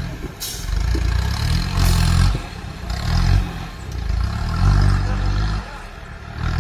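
Mahindra 4x4's engine revving in repeated surges that rise and fall, with clattering over rough ground.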